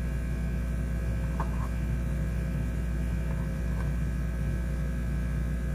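Steady low electrical hum, with a couple of faint soft ticks about a second and a half in.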